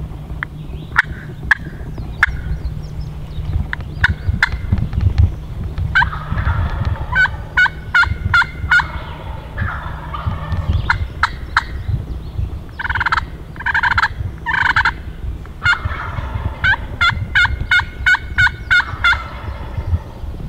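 A hunter's slate turkey call scratched out in runs of sharp, quick yelps, with wild turkeys gobbling in answer.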